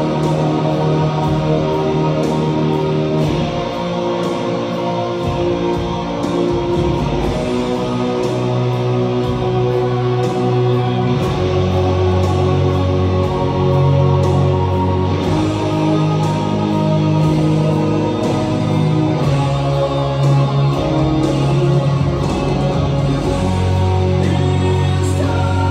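Electric guitar played live over a recorded metal backing track with held low chords and sung vocals.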